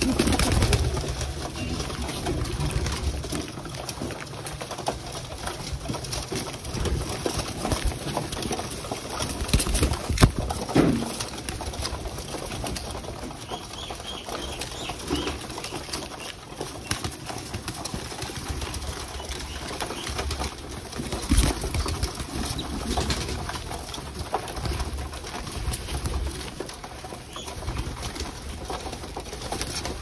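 A flock of domestic pigeons crowding to feed: many birds cooing, with wings flapping and jostling.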